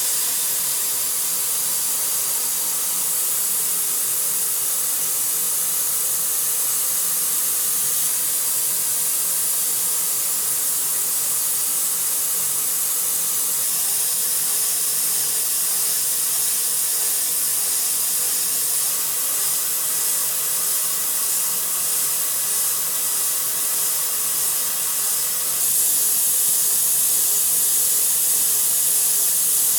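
CNC milling machine cutting with a small NS TOOL end mill: a steady, loud hiss with faint steady tones beneath, growing louder near the end.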